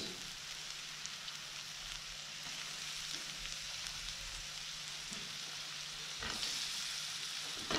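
Chopped onion and garlic sizzling in hot canola oil in a pot, a steady hiss with a few small crackles that grows louder near the end.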